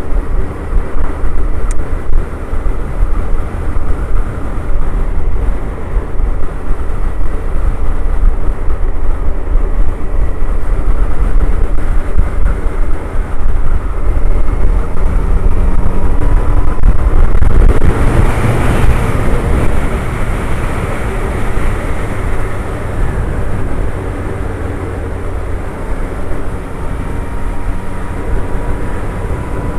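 Suzuki Hayabusa's inline-four engine running steadily at motorway cruising speed, with wind and road rush over it. About eighteen seconds in, a swell of rushing noise rises and fades over a few seconds.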